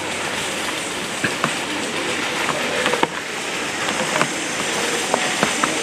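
A steady rushing hiss of outdoor ambience, with scattered sharp clicks and crackles.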